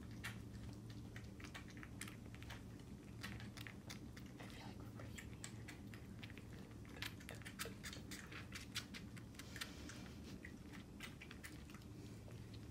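Bobcat kittens suckling from feeding bottles: faint, irregular wet clicks and smacks, a few louder ones past the middle, over a steady low hum.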